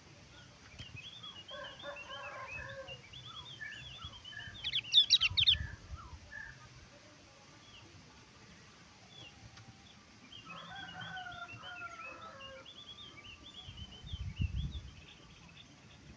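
Javan grey-throated white-eye (opior jawa) calling in two bouts of rapid chattering notes. The loudest moment is a short burst of sharp, high notes about five seconds in.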